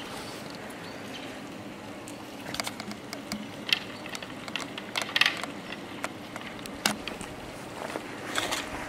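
Scattered sharp clicks and knocks, irregular and sometimes several close together, over a steady low hum.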